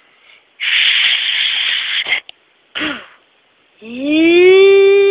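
A child's mouth-made sound effects: a long breathy hiss lasting about a second and a half, a short puff near the middle, then a rising 'oooo' hum from about four seconds in, held on one note.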